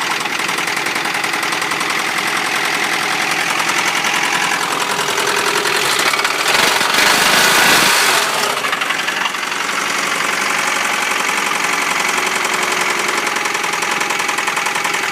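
1993 Honda Prelude's H23A1 2.3-litre four-cylinder engine running with a fast, even ticking, the weird noise its owner cannot identify. The sound grows louder and hissier for about two seconds midway, then settles back.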